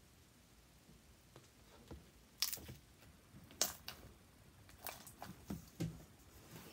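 Sticky homemade slime squished and pulled by hand in a plastic bowl: a series of short wet squelches and sharp sticky pops, the loudest about two and a half and three and a half seconds in.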